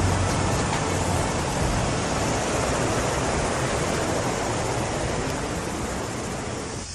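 Steady rushing roar of a waterfall and river rapids, slowly fading as it grows more distant.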